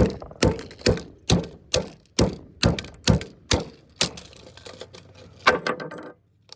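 Computer mouse being smashed with a hand tool: a run of about a dozen hard blows, roughly two a second, that stop about six seconds in.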